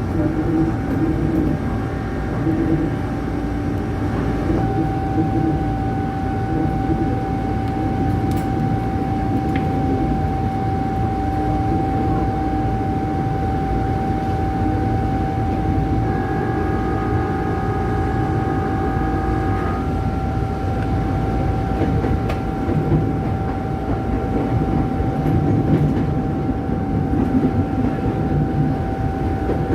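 Tokyu 8500-series electric commuter train running, heard from the driver's cab: a steady rumble with a steady whining tone over it, and a few higher tones joining briefly partway through.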